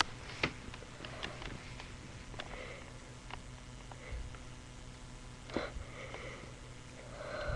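A person sniffing through the nose several times in short breaths, with a few light clicks between, as a cat hair tickles the nose and a sneeze is held back.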